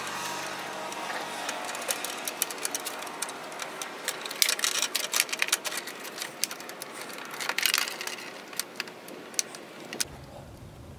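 Irregular plastic clicks and rattles of hands working an LED angel-eye bulb and its wiring into the back of a BMW E92 headlight housing, with denser bursts of clicking about four and a half and seven and a half seconds in.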